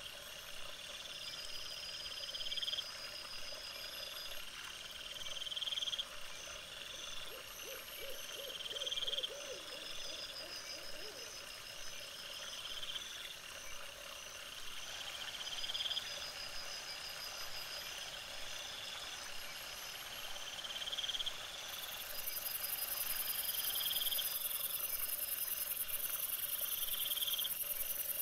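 Night-time chorus of animal calls: a short rising call repeats about every two seconds over a steady high-pitched trill. About three-quarters of the way in, a loud high hiss sets in over it.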